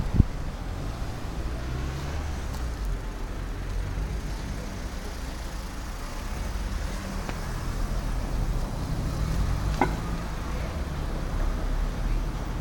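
City street traffic: a steady low rumble of cars running and passing, with a single sharp knock at the start.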